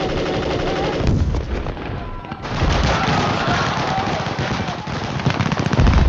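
M16 and AK-47 rifles firing rapid automatic bursts in a firefight, shot after shot with no break, loudest near the end.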